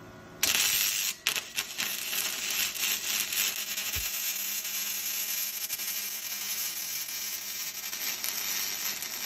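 Electric arc welding: a sudden start of dense, steady crackling and sizzling from the arc. It breaks off briefly twice early in the bead, then runs evenly until it cuts off.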